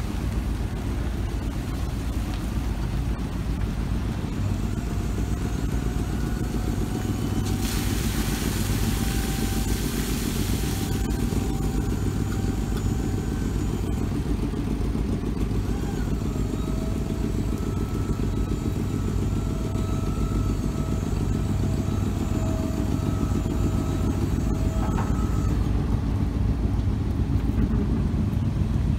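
Pickup dump truck's engine running with a steady low rumble, and over it the whine of the dump bed's hydraulic pump, heard twice for several seconds each as the bed is raised and then lowered. A rushing hiss comes in for about three seconds, about eight seconds in.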